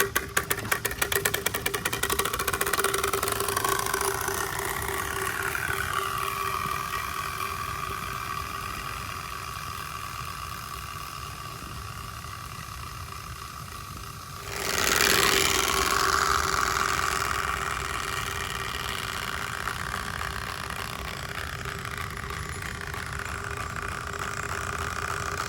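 Turbospoke bicycle exhaust noise maker: an insert slapping the spinning spokes through a plastic exhaust pipe, giving a motorbike-like buzz whose pitch rises and falls with riding speed. It begins as rapid clicking and turns suddenly louder about halfway through, then slowly fades.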